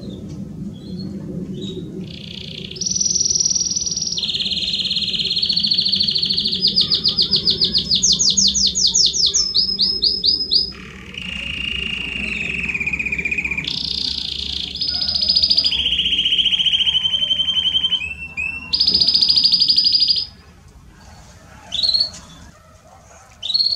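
Domestic canary (canário belga) singing a long song of rolling trills and rapid repeated notes, each phrase held a second or two before jumping to a new pitch. The song stops about 20 seconds in, and two short chirps follow near the end.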